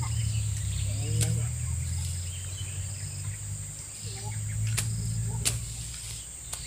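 Outdoor ambience: a steady high insect drone over a low rumble, with faint distant voices and a few sharp clicks.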